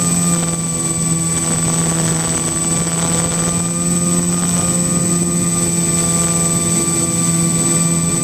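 Twin brushless electric motors spinning 10x6 propellers on a foam-board RC plane, heard from a camera mounted between them in flight: a steady, even drone with rushing wind.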